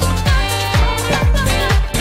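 Upbeat disco-style dance music with a steady kick-drum beat.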